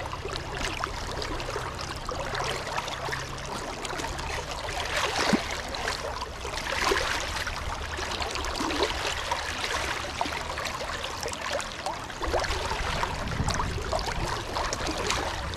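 Flowing river water, with small splashes and sloshing as a brown trout is handled in a rubber landing net held in the current.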